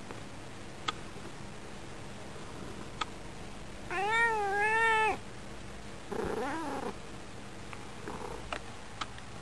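Calico cat meowing while being stroked: one long, wavering meow about four seconds in, then a shorter, rougher call a second later and a faint one near the end. A few faint clicks come in between.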